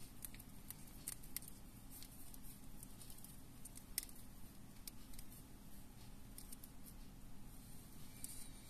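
Faint scattered clicks and small handling noises as thread is wound by hand around a fishing hook, one sharper click about four seconds in, over a steady low hum.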